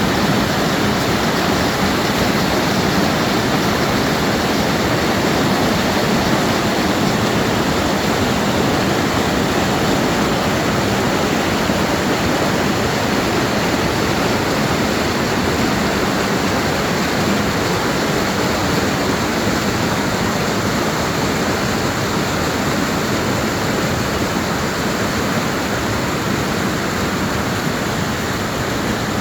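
The Lidder River's fast-flowing water rushing, loud and steady throughout.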